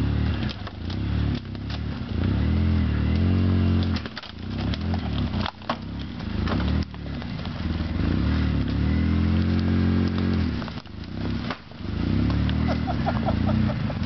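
Polaris RZR 800 side-by-side's twin-cylinder engine revving up and easing off in repeated surges as it crawls over deadfall, with sharp cracks and knocks from the branches under its tyres between the surges.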